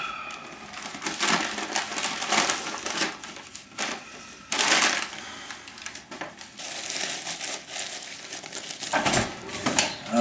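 Paper bag and foil-and-paper burger wrapper crinkling and rustling in irregular bursts as a burger is pulled out and unwrapped by hand.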